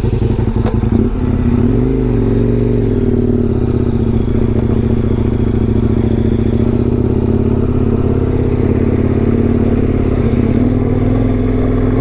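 KTM 1090 Adventure R's V-twin engine running under way, its pitch rising and dipping briefly about two seconds in, then holding steady at cruising speed.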